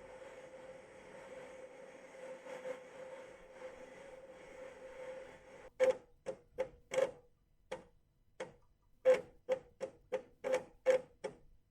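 Amiga 500's internal 3.5-inch floppy drive loading from a disk: a low steady running hum with a faint held tone for the first half, then about a dozen sharp, unevenly spaced clicks as the read head steps between tracks.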